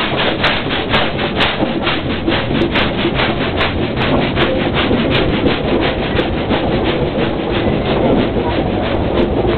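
Exhaust of a steam vehicle's engine chuffing at a steady rhythm, about four chuffs a second, the beats growing less distinct in the second half as it moves along.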